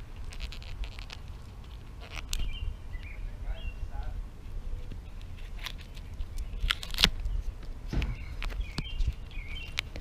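Scattered light scrapes and clicks of a hand working at the cracked old sealant along the RV roof edge, with a sharper scrape about seven seconds in. Small birds chirp now and then over a steady low rumble.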